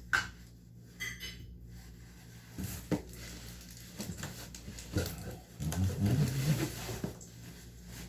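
Small plumbing parts and hardware clinking and a bag rustling as they are handled, in scattered clicks and taps. About six seconds in there is a brief low voice-like sound.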